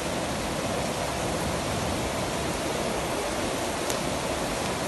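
Heavy downpour pouring steadily: a dense, even hiss of rain.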